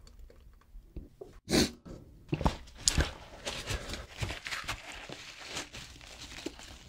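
A sudden loud noise about a second and a half in, then a paper tissue crinkling and rustling close to the microphone as a gloved hand crumples it against the mouth.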